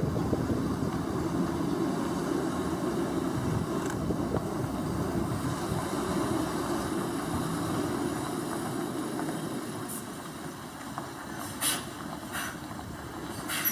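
Heavy container truck's diesel engine running as the truck drives slowly over a rough, potholed dirt road: a steady low rumble that eases off a little past halfway. Three short sharp bursts come near the end.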